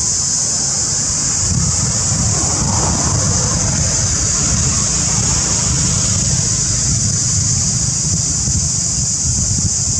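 Wind buffeting the microphone as a steady, fluttering low rumble, with a continuous high-pitched hiss above it.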